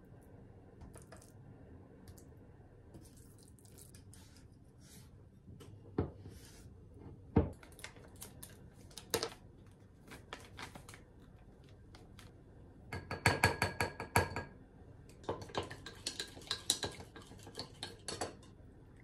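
Kitchen utensils clattering on glass: scattered light taps and two sharper knocks about a third of the way in, then a small spoon clinking rapidly against a glass beaker, with a ringing tone, in two runs in the second half as potato starch is stirred into water to dissolve it.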